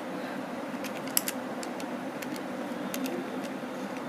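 Buttons of a Casio fx-991EX scientific calculator being pressed in quick succession: a string of about ten short, irregular clicks, the loudest a little past one second in, over a steady background hum.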